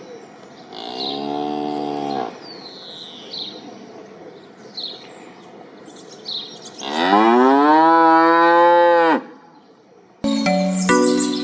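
Cows mooing twice: a shorter moo about a second in, then a longer, louder moo about 7 seconds in that rises in pitch and then holds, over faint bird chirps. Near the end, chiming mallet-instrument music starts.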